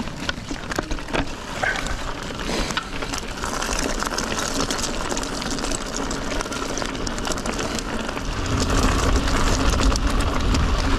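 Mountain bike rolling fast downhill: steady noise of knobbly tyres on dirt and stones with the bike rattling, and wind buffeting the microphone. About eight seconds in it grows louder and deeper as the trail turns rocky.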